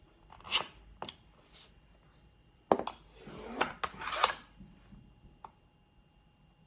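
Clatter of tools and MDF pieces being handled on a workbench: a series of sharp knocks and scrapes, the two loudest about three and four seconds in.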